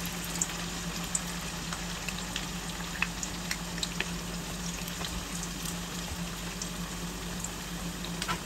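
Potato rings deep-frying in hot olive oil in a wok: a steady sizzle with scattered small pops and crackles.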